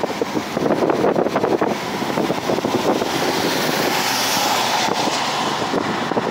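Road and wind noise of a moving car heard inside its cabin: a dense, steady rush of tyres and air, with rough rumbling and clatter in the first two seconds.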